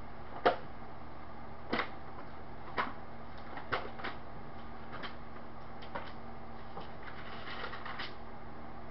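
Pages of a Bible being turned by hand while looking up a passage: short paper rustles and taps, roughly one a second, a little busier near the end.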